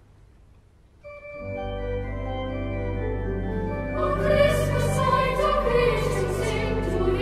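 Background music. After a quiet first second, sustained organ chords enter, and about four seconds in a choir joins, singing over them.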